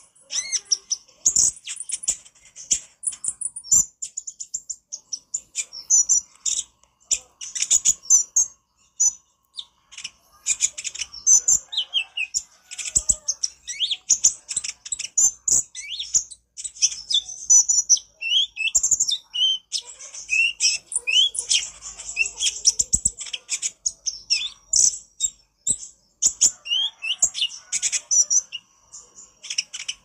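Male Van Hasselt's sunbird (kolibri ninja) singing a rapid, chattering song of high chirps and trills, with short rising notes, in bursts separated by brief pauses.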